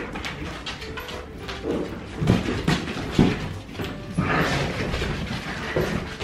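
Siberian huskies, an adult and its seven-week-old puppies, playing: short dog vocal sounds that are loudest about two to three seconds in and again just after four seconds. Frequent light clicks of claws on the tiled floor run beneath them.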